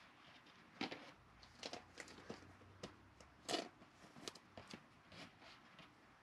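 Chrome trading cards and thin plastic penny sleeves being handled: faint, scattered rustles and clicks as cards are slid into sleeves. The loudest come about a second in and again about three and a half seconds in.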